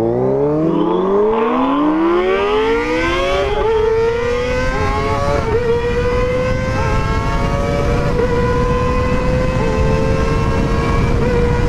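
Kawasaki ZX-25RR's 250 cc inline-four with a Pro Liner aftermarket exhaust, accelerating hard from a standstill. The engine note climbs steeply over the first few seconds, with brief dips at quick upshifts, then holds a high, steady pitch at high revs while wind noise builds.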